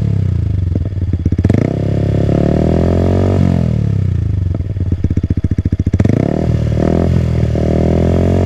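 Yamaha XSR 155's single-cylinder engine through an SC Project CRT exhaust, revved at low rpm while standing. Twice, about two seconds in and again about six seconds in, the revs jump, hold briefly, then slide back down toward idle.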